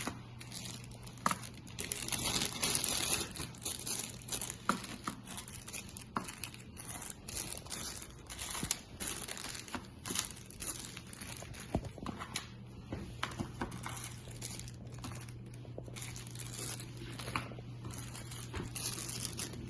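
Plastic packaging crinkling and rustling in irregular bursts, with scattered light clicks and knocks, as the kit's cables are unpacked and handled; the crinkling is densest about two seconds in.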